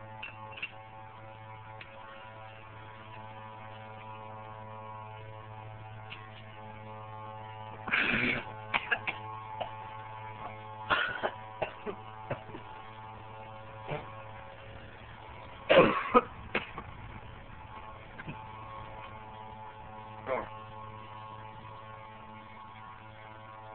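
A child coughing and blowing out breath in short bursts after taking a mouthful of powdered sugar: four bursts spread over the stretch, the loudest about two-thirds of the way in, over a steady hum.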